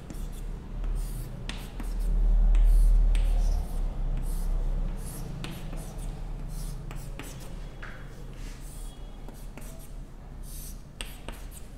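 Chalk writing on a chalkboard: short scratchy strokes and taps as letters and bond lines are drawn. A low rumble stands out between about two and four seconds in.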